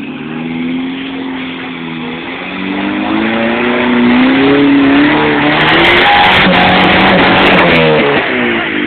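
Four-cylinder 4x4 engine revving hard under load while climbing a rock ledge, its pitch rising and falling. In the second half it is loudest, with a harsh rush of tires scrabbling on rock and a few sharp knocks. Near the end the revs drop away as the climb falls just short.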